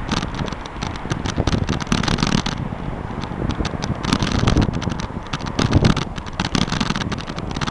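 Wind rumbling on the microphone of a camera riding on a moving bicycle, with dense crackling and rattling clicks from the bike and mount as it rolls over an asphalt path.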